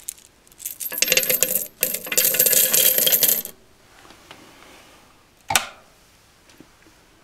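Handfuls of pre-1982 copper pennies poured into the crucible of an electric melt furnace, clinking and jingling against each other in two runs, the second longer. A single sharp click comes a couple of seconds later.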